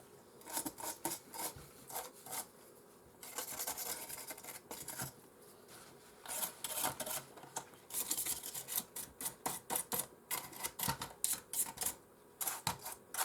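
Rapid scrubbing strokes of cleaning dust and dried liquid residue off a PlayStation 4 part, about three or four strokes a second in runs broken by short pauses.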